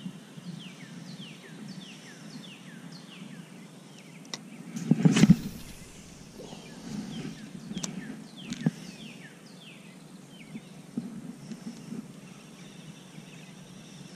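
Birds calling outdoors: many short chirps that each fall in pitch, repeated throughout. A loud brief rushing noise about five seconds in, and a few sharp clicks.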